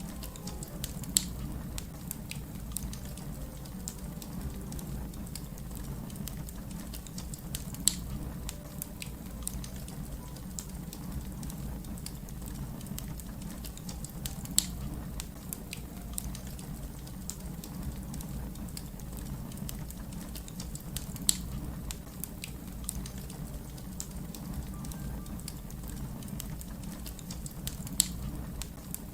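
Fire crackling: a steady low rumble under many small crackles, with a sharp louder pop about every seven seconds, five in all.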